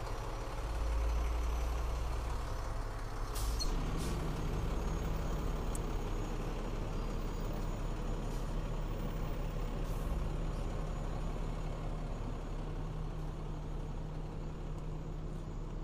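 Fire engine's diesel engine running as the truck drives past, a steady low rumble, with a brief hiss of air brakes about three and a half seconds in.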